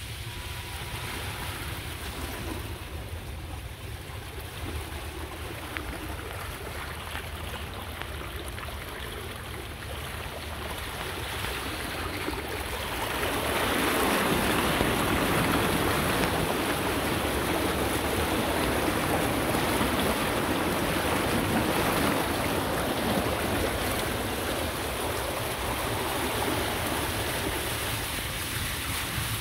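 Golf cart driving across a waterlogged yard, then ploughing through floodwater: from about halfway through, water rushes and splashes up alongside the cart for about ten seconds before easing off as it climbs back onto wet grass.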